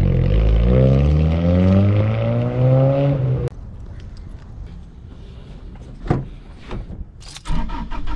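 Car engine revving: its pitch dips, then climbs steadily for about three seconds and cuts off abruptly. After that, quieter background with a few knocks and clicks.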